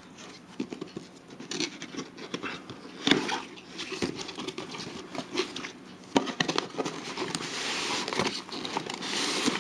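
A cardboard box being opened by hand: scattered taps and knocks, then a steady scraping rustle of cardboard over the last three seconds or so.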